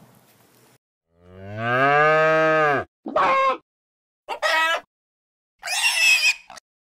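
A cow moos once, a long call that rises then falls in pitch. It is followed by three short, higher bleats from goats.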